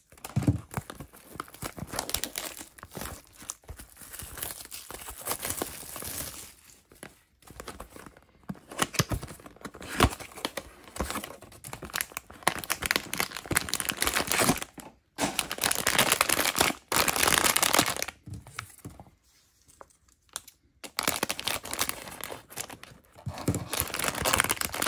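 Crinkly plastic packaging being handled and torn by hand: the plastic wrap on a cardboard blind box, then a foil mystery bag, in stretches of crackling with short pauses.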